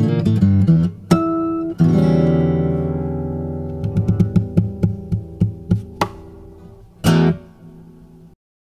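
Fingerstyle acoustic guitar music. Plucked notes give way to a chord that rings and slowly fades, then a last brief strum comes about seven seconds in, and the music stops shortly before the end.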